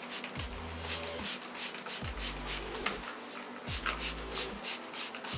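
Hand scrubbing of degreaser-covered BMX bike parts: a regular back-and-forth rubbing, about three strokes a second.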